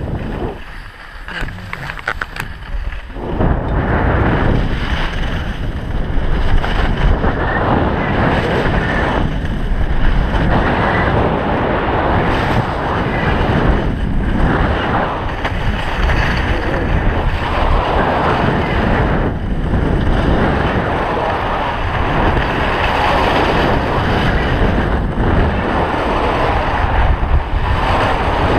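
Wind buffeting an action camera's microphone and skis hissing and scraping over packed snow on a downhill run, building to a loud steady rush about three seconds in as speed picks up.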